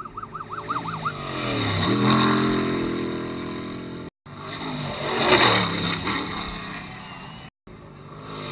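Unlimited-class desert race trucks running hard past the camera, their engine pitch falling as each goes by, in short clips broken by two brief cuts. A warbling high whistle sounds in the first second, and the loudest moment is a rushing surge about five seconds in as a truck passes close.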